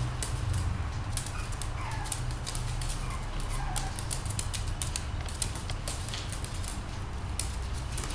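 Dogs' claws clicking and pattering irregularly on a hard tiled floor as a black-and-white dog plays with a Jack Russell puppy, over a steady low hum.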